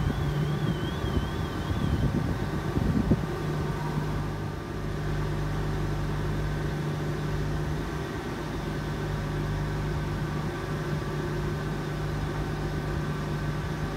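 Regional multiple unit standing at the platform with its onboard equipment running, a steady hum. A warbling high beep sounds for the first two seconds, and a single knock comes about three seconds in.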